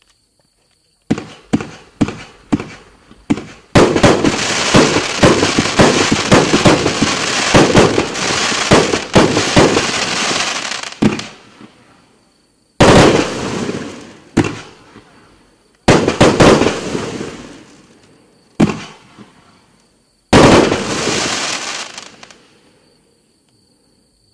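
Raccoon Fireworks 'Intertwined' 24-shot, 500-gram consumer cake firing: about six quick shots, then a dense barrage of shots for about seven seconds. After a short gap come about five separate loud bursts a second or two apart, each dying away over a second or more.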